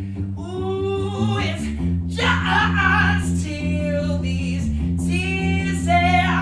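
Live male vocal ad-lib without words: three long belted phrases with pitch slides, over a bass guitar holding low notes.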